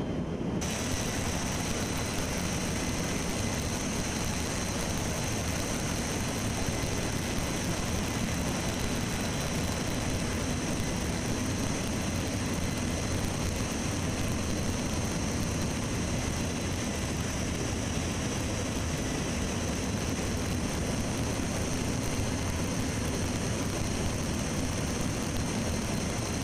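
Steady cabin noise of a C-17 Globemaster's four turbofan engines in flight, heard inside the cargo hold with rushing air from the open paratroop door. A high, steady engine whine joins the low rumble about half a second in.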